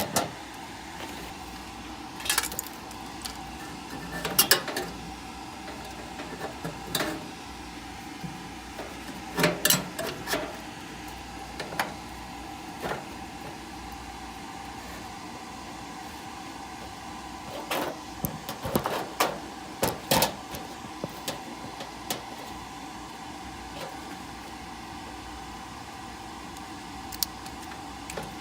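Scattered clicks, taps and clatters of hand tools and parts being handled during work on a gas furnace, in clusters with gaps between, over a steady hum.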